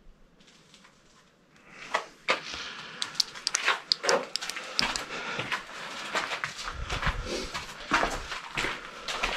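Footsteps crunching on gravel and loose rubble in a tunnel, starting about two seconds in after a near-silent start, a steady run of irregular crunches and clicks.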